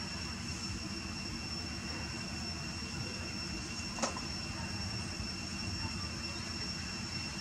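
Steady low outdoor rumble with a constant high-pitched whine over it, and a single sharp click about four seconds in.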